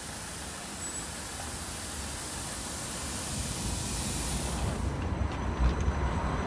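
Class 399 Citylink tram-train with a steady high hiss of air that cuts off sharply about five seconds in, followed by a low rumble as it starts to move off past.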